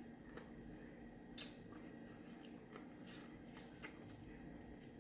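Faint, scattered clicks and wet squishes of steamed blue crab and crawfish being picked apart and eaten, the clearest click about a second and a half in.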